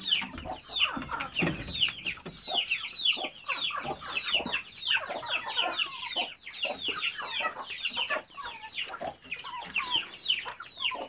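A coop full of chickens: chicks peeping in a dense chorus of short, high chirps that fall in pitch, with hens clucking among them.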